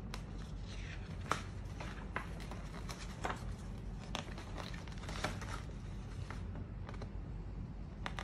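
Glossy paper catalog being opened and its pages handled: paper rustling with several sharp crackles, over a steady low hum.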